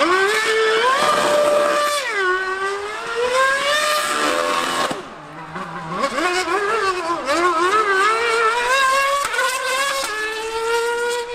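2013 Mercedes Formula One car's 2.4-litre V8 revving hard, its high pitch climbing and falling again and again, with a brief drop about five seconds in. In the middle the revs flare up and down in quick wobbles as the car spins donuts on its rear tyres.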